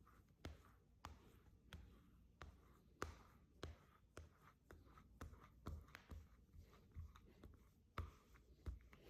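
Faint, short scraping strokes repeated about twice a second: a tint installer's hard card working over window film on glass.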